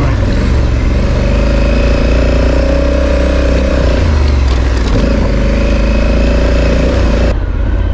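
Honda Africa Twin's parallel-twin engine running, its pitch rising and falling with the throttle. Near the end the sound changes abruptly, losing its hiss.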